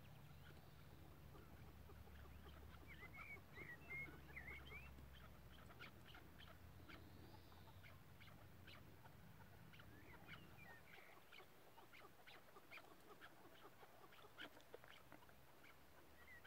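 Faint chukar partridge calls: scattered short clucking and chirping notes. A low rumble underneath stops about eleven seconds in.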